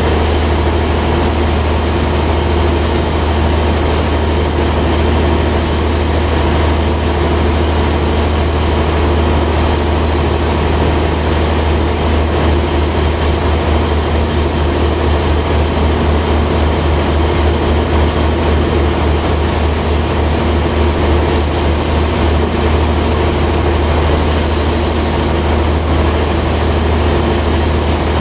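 Log band-saw mill machinery running steadily with a loud, constant low hum.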